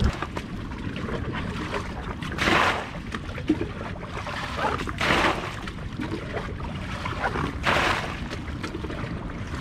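Water splashing out of a plastic bucket, three short splashes about two and a half seconds apart, as water is bailed out of a dug hole that the tide keeps filling. A steady low outdoor rumble of wind and surf lies under them.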